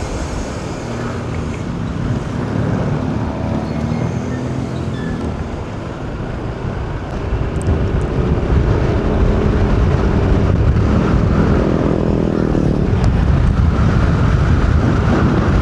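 A car driving, with a steady rumble of engine and tyre noise that gets louder about seven seconds in.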